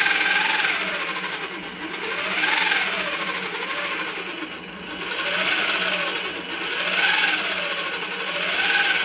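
Cordless power drill motor driving the rear wheel through herringbone reduction gears and a friction roller, whining as it speeds up and slows down about six times under the thumb throttle.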